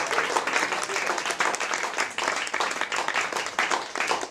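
A small audience applauding, many hands clapping.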